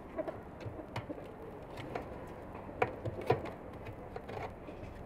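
Metal knife and tongs clinking and scraping against a steel tray as slices are cut from a stacked doner, with scattered sharp clicks, the two loudest about three seconds in, half a second apart.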